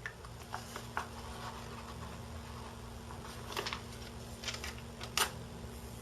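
Scattered light clicks and taps from handling a model rocket and a marker pen while the fin edges are inked, the loudest about five seconds in, over a steady low hum.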